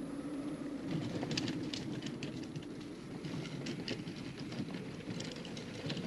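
Strong wind blowing with a steady low rush. From about a second in, many quick sharp crackles and rattles sit on top of it.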